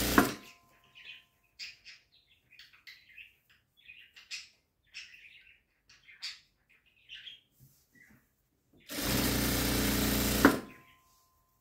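Jack industrial sewing machine stitching at a steady speed: a run that stops with a sharp click just after the start, then several seconds of quiet fabric rustling and handling, then a second run of about a second and a half that also ends in a sharp click.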